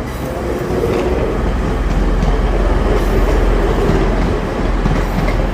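A train passing close by on the main line: a steady rumble of running gear on the rails, swelling towards the middle of the pass.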